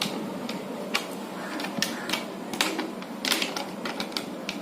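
Irregular sharp clicks and crackles, about a dozen, of a plastic bottle being handled while jute thread is pulled tight and knotted around it.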